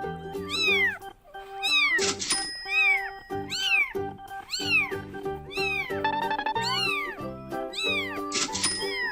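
Looping music made of cat meows, about two a second, each meow rising and falling in pitch, over a steady musical backing.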